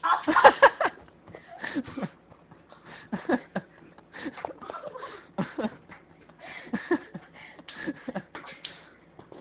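Kids laughing and calling out in short, broken bursts, loudest at the start, with a sharp click about half a second in.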